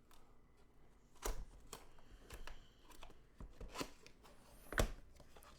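Cardboard box and packaging being opened and handled: scattered rustles, scrapes and light taps, with sharper knocks about a second in and near the end.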